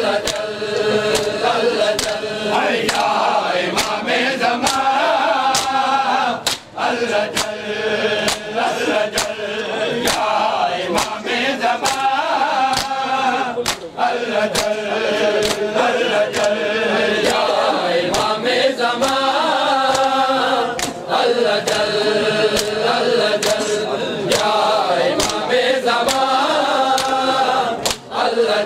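Men's voices chanting a Shia mourning lament together, with the steady beat of bare-handed chest slaps (matam) keeping time.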